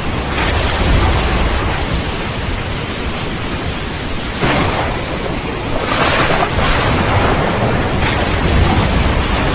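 Steady rain with thunder rumbling, swelling about a second in and again near the end, with brighter surges of rain noise around the middle.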